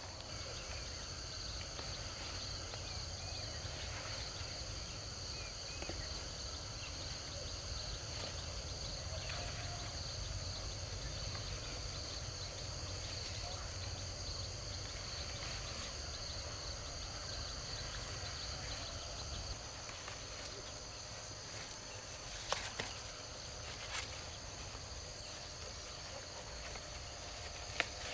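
Steady chorus of insects: a continuous high-pitched shrill that does not let up, with a low rumble underneath. A few sharp knocks or snaps come in the last few seconds.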